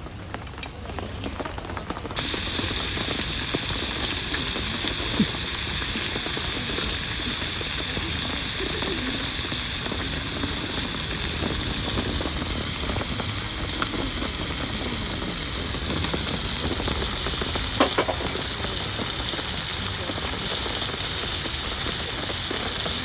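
Food sizzling in a frying pan: a steady, dense sizzle that starts suddenly about two seconds in, with a few small pops.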